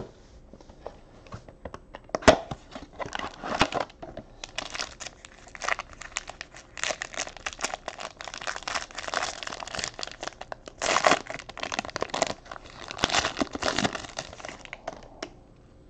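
Foil wrapper of a trading card pack crinkling as it is handled and torn open, with one sharp snap a little over two seconds in. The crinkling stops shortly before the end.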